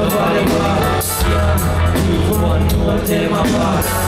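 Live reggae band playing, heard from the crowd: long deep bass notes with regular drum hits and guitar, with no words sung in this stretch.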